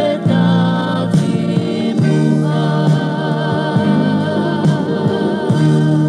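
Tongan gospel song: singing over band accompaniment, with long held notes that waver in vibrato.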